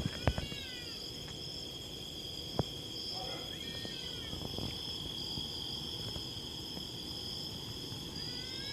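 Steady, high-pitched chorus of night insects, holding two even tones. Short falling chirps from some other small animal come about half a second in, around the middle and near the end, with a few light clicks near the start.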